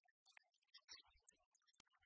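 Near silence, with only faint scattered ticks and crackle.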